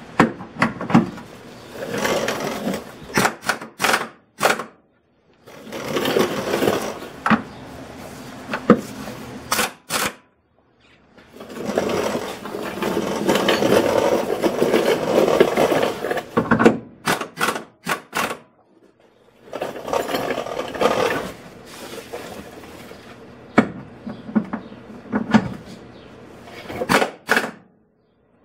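Air tools at work: the shop air compressor running and an air impact wrench rattling in several bursts of a few seconds each, with sharp clanks between them, as the rear subframe bolts are broken loose.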